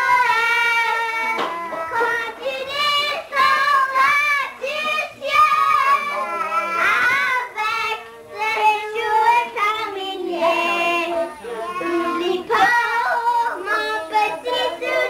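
Young children singing a song together.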